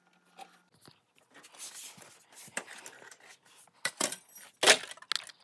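Handling noises: rustling with scattered sharp clicks and clinks, loudest near the end.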